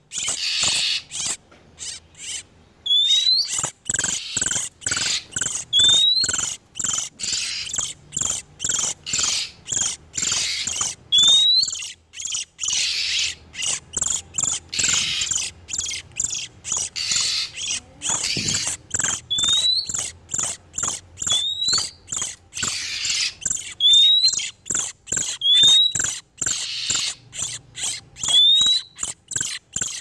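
Oriental magpie-robins calling, male and female in breeding condition: a fast, dense ticking chatter broken by short rising whistles, one every two seconds or so.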